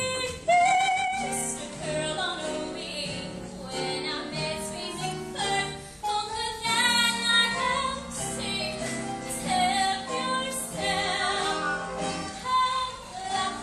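A woman singing a musical theatre number with vibrato on held notes, over backing music.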